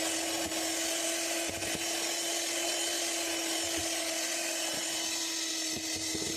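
Electric kitchen mixer motor running steadily at one constant pitch, beating the egg for a capeado batter, with a few light knocks near the end.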